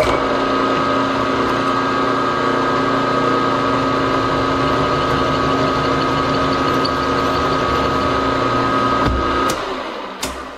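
Gearhead milling machine running in third speed (345 RPM): a steady gear whine over a motor hum while a chamfer tool cuts into a hole in an aluminium plate. About nine and a half seconds in it is switched off and winds down.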